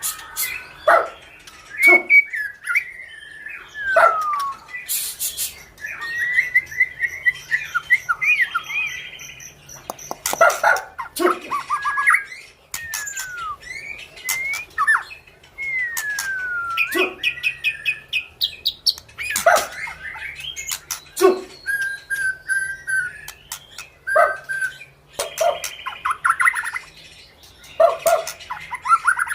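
White-rumped shama (murai batu) singing a long, varied song. Its phrases of clear whistled notes and falling glides come every second or two, mixed with sharp clicking, rattling notes.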